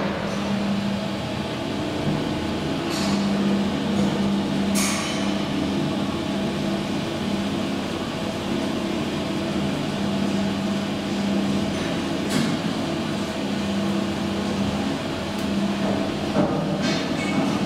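A traction elevator car travelling in its shaft: a steady hum from the running car and drive, with a few scattered sharp knocks.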